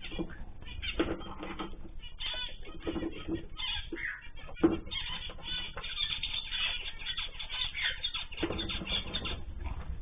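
Mixed aviary birds (cockatiels, zebra finches, canaries and goldfinches) calling and chirping over one another in a dense run of short overlapping calls, some sliding down in pitch. There is one sharp knock about four and a half seconds in.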